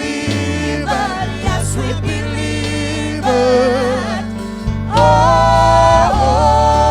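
Gospel song: a solo voice singing with vibrato over instrumental backing and a steady bass line, swelling into a long held note about five seconds in.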